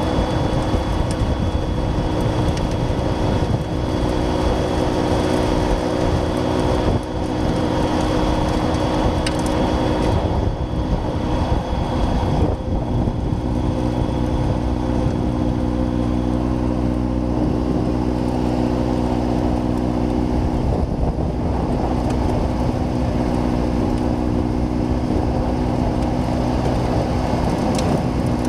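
John Deere 6110R tractor's diesel engine running steadily under load, powering a rear-mounted snowblower while clearing a snow drift. The engine's pitch holds nearly constant, with a slight shift in its low tones about halfway through.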